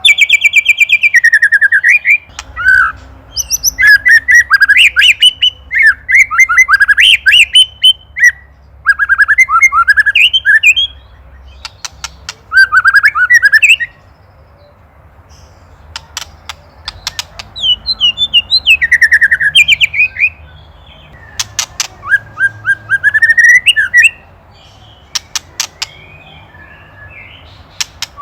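White-rumped shama (murai batu) calling in loud bursts of rapid chattering phrases, mixed with short dry rattles: the agitated 'ketrekan' call a shama gives when it is worked up by a predator. The calling pauses for a few seconds about halfway through, then resumes.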